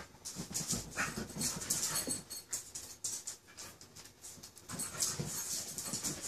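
Two dogs play-wrestling, growling and mouthing at each other in quick, uneven bursts with breathy noises between.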